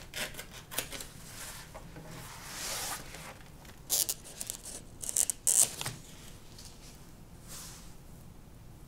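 Rustling of a fabric chair pad and its paper label as they are handled, then scissors snipping the label off. A few sharp snips come about four and five seconds in and are the loudest sounds.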